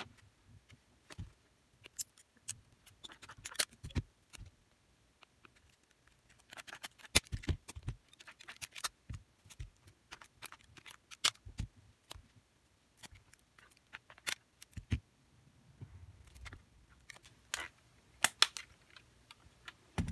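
Irregular clicks, snips and short scratchy strokes of hands working over a smartphone on a rubber repair mat, as strips of tape are cut and pressed across its newly fitted screen.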